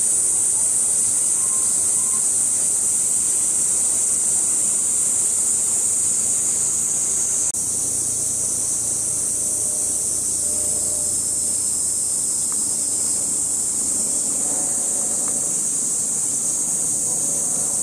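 Chorus of cicadas droning steadily, a continuous high-pitched buzz that fills the whole stretch.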